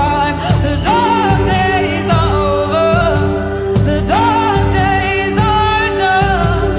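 Live band music with wordless singing over a steady beat.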